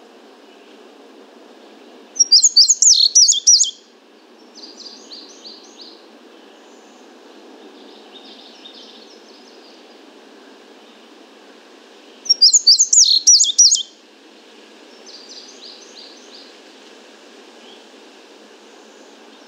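Indigo bunting singing, picked up at about 50 feet through a parabolic microphone: two loud song phrases about ten seconds apart, each a quick run of high notes lasting about a second and a half. Fainter high bird notes come between them, over a steady background hiss.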